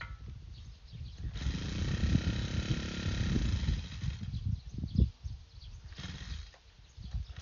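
Brush cutter fitted with a cement-mixing wheel, run up to high speed for about three seconds as it churns wet cement and gravel, then easing back to a low rumble. A single sharp thump comes near the middle.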